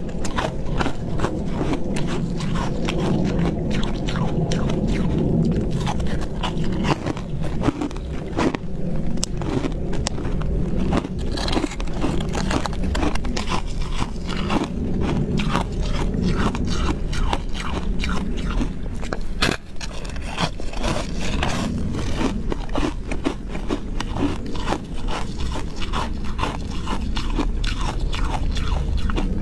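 A person biting and chewing a thin disc of ice: a dense run of crisp crunches and cracks that goes on with hardly a break.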